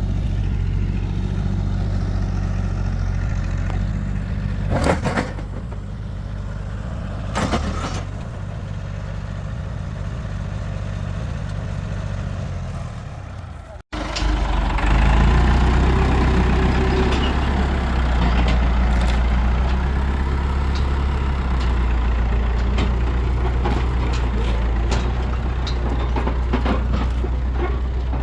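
Farm tractor engine running steadily while hauling a trailer, with a couple of short knocks in the first half. There is a brief break about halfway through, after which the engine sounds louder.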